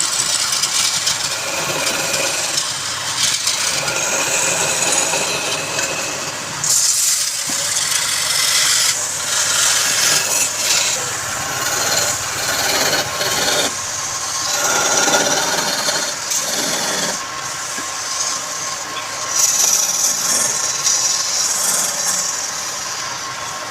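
Woodturning lathe with a tool held against the spinning wood, giving a continuous rasping scrape that swells and eases in uneven spells every few seconds.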